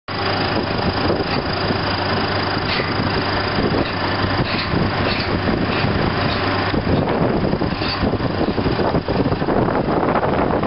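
Heavy diesel equipment running steadily and loudly, with a constant low hum and a few light clanks.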